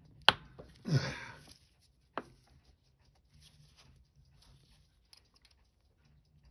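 Small hand tools working on a vintage Seiko chronograph case during disassembly: a sharp click, a short rasping scrape about a second in that slides down in pitch, a second click, then faint light ticks.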